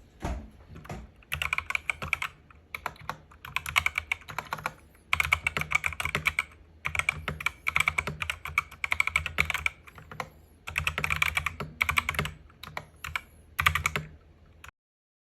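Fast typing on a mechanical keyboard: rapid runs of clacking keystrokes in bursts of a second or two with short pauses between, stopping abruptly near the end.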